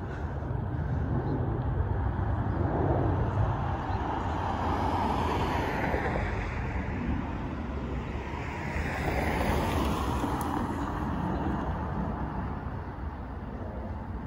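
Jet airliner's engines roaring as it climbs away after takeoff, heard as a steady low rumble under wind on the microphone. Road traffic swells up and fades twice, near the middle and a few seconds later.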